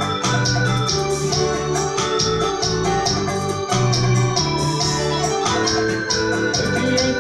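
Electronic keyboard playing an instrumental passage in an organ voice: held chords over a moving bass line, with a steady beat.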